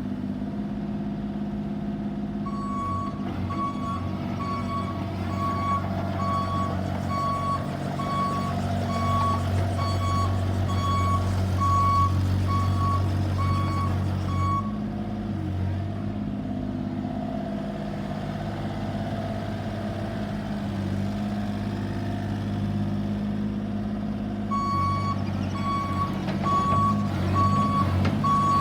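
Bobcat E32i mini excavator's diesel engine running steadily, with its travel alarm sounding a regular high single-tone beep, a little more than one beep a second, while the machine tracks. The beeping stops about halfway through and starts again near the end.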